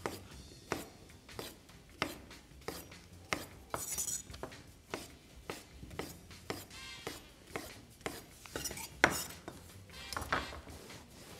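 Chef's knife cutting a zucchini into irregular chunks on a wooden cutting board: a loose, uneven series of knife strokes knocking on the board, roughly one or two a second.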